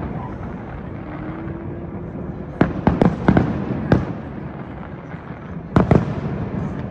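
Fireworks shells bursting: four sharp bangs in quick succession a few seconds in, then a close pair of bangs near the end, over a continuous low rumble.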